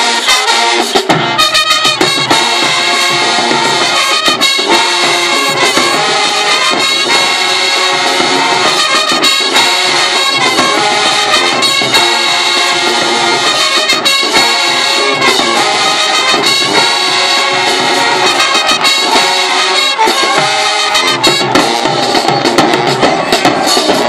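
High school marching band playing in the stands: the full brass section of trumpets, trombones and sousaphones comes in about a second in over the drums and carries a loud, steady tune.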